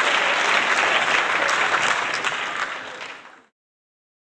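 Recorded applause sound effect: a crowd clapping steadily, fading out near the end and stopping dead into silence.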